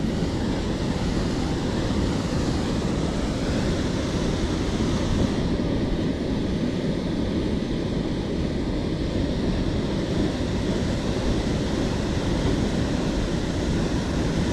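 Steady rushing of a waterfall and the churning water of the pool below it, an even, unbroken roar heaviest in the low end.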